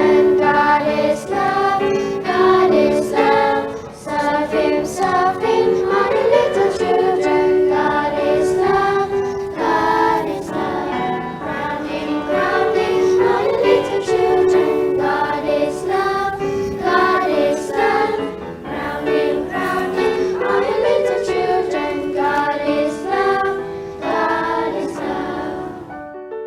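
Children's Christian sing-along song: a choir of voices, children among them, singing over a musical accompaniment with a steady beat.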